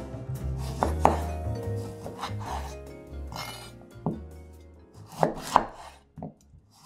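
Chef's knife cutting through limes and striking a wooden chopping board: a few separate cuts, with a quick pair of louder chops near the end.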